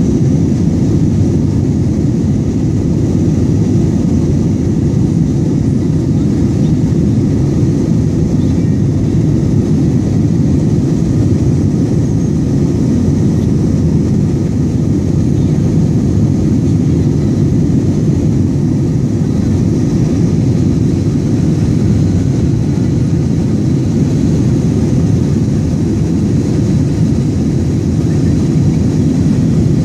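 Jet airliner engines and airflow heard inside the passenger cabin: a steady, deep, even rumble that holds the same level throughout.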